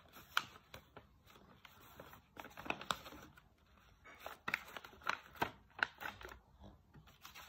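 Sheet of paper rustling and crinkling as it is handled and creased by hand, in scattered short crackles.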